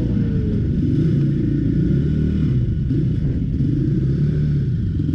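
KTM 450 SX ATV's single-cylinder four-stroke engine running at low speed, its pitch rising and falling as the throttle is worked.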